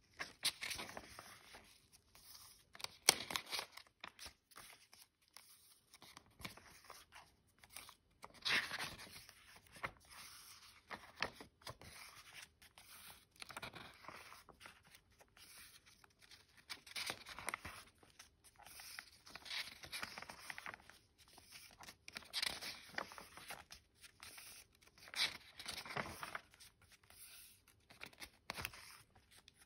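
Paper pages of a sketchbook being turned by hand, each turn a short rustle and crinkle of paper, every few seconds.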